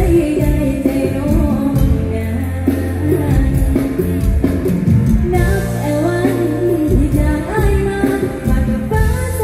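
A girl singing a Thai song into a hand microphone with a live band backing her, amplified through the stage PA.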